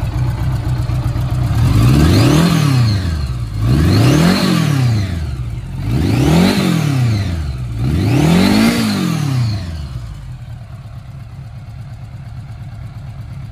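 Stock Honda GL1100's horizontally opposed four-cylinder engine idling and revved four times, each rev rising and falling back, then settling to a steady idle for the last few seconds.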